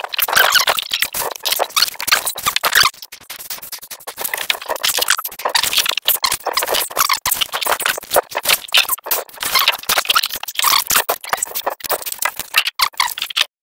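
Plastic wrapping crinkling and rustling as it is pulled and handled around a large battery, a dense, irregular crackle that stops abruptly near the end.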